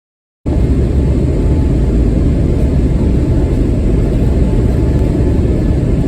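Loud, steady rumble of jet engines and runway noise heard inside an airliner cabin, typical of the takeoff roll. It cuts in abruptly about half a second in, after a silent gap.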